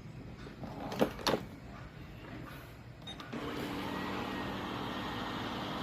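Robot vacuum: two sharp clicks about a second in, then its motors start about three seconds in and run with a steady hum and whir.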